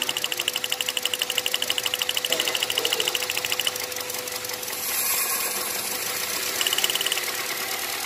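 Hyundai i10 four-cylinder petrol engine idling with a misfire, with a rapid, even ticking over the running engine for about the first half and again briefly near the end. Cylinder 2 is firing only weakly; since the miss shows only when the engine is hot, the mechanic suspects a fault in the cylinder head, such as valves or tappets.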